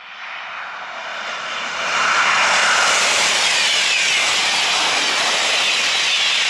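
SNCF TGV Duplex double-deck high-speed train passing at speed. A rushing noise swells over the first two seconds as it approaches, then holds loud and steady as the cars go past.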